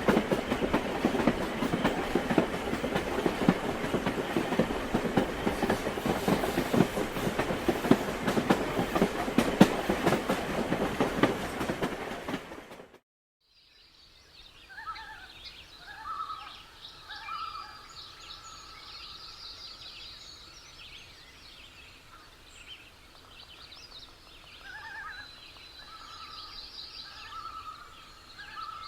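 A railway train running with a rhythmic clickety-clack of wheels over rail joints, which fades out about twelve seconds in. After a moment of silence, birds call in short repeated phrases over a faint background.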